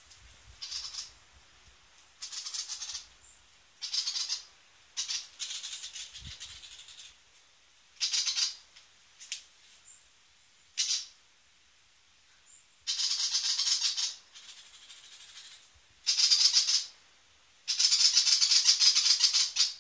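A rattle or shaker shaken in about ten short bursts, each half a second to two seconds long, with quiet gaps between. The longest and loudest shaking comes near the end.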